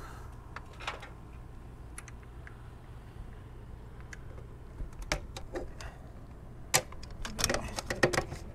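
Scattered metal clicks and knocks as the pin and end fitting of a new gas strut are worked into an RV awning arm's bracket, with a quick cluster of clicks near the end. A steady low hum runs underneath.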